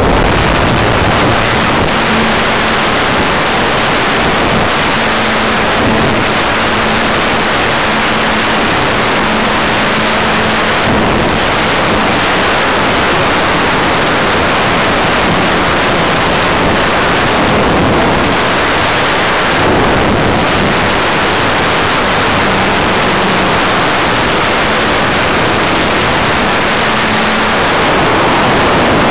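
Onboard microphone of a WOT 4 RC model plane in flight: a loud, steady rush of propeller wash and airflow over the plane, with a faint low motor hum coming and going under it.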